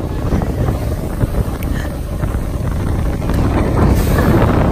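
Roller coaster train rumbling along its track, with wind buffeting the phone's microphone in a dense, low rumble.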